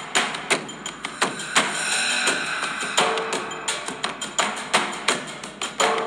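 Background music: a percussive track with a steady beat of sharp drum hits, about three a second, and a few held notes between them.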